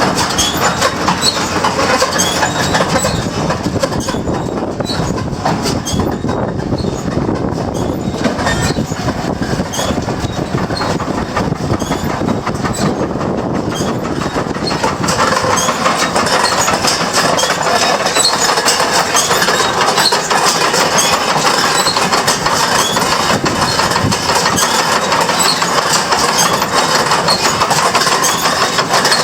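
New Holland 688 round baler running, its mechanism clattering steadily with rapid ticking, a little louder from about halfway through.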